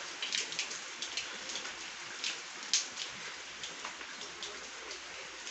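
Light rain falling: a steady hiss with scattered sharper drops ticking close by.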